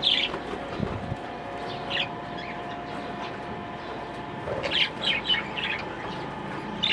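A flock of budgerigars chirping in short, scattered calls, with a busier run of chirps about five seconds in.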